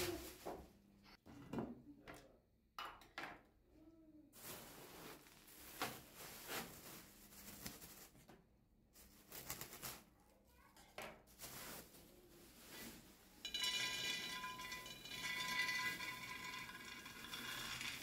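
Shelled peanuts poured from a bag into a glass jar, a dense rattle of nuts striking and filling the glass over the last few seconds. Before that, scattered clicks and rustles of the plastic bag and jar being handled.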